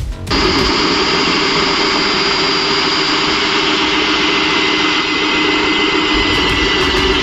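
Bosch GSB 180-LI 18 V cordless drill starting just after the start and running steadily at full speed: an even motor whine over a loud hiss.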